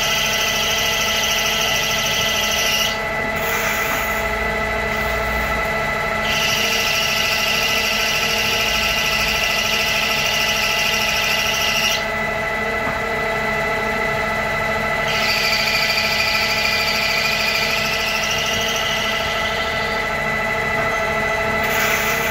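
CNC lathe turning a brass pin in a G71 roughing cycle: the spindle runs with a steady hum while the tool cuts with a high, hissing cutting noise. The cutting noise stops twice for about three seconds, about three seconds in and about twelve seconds in, and starts again as the next pass begins.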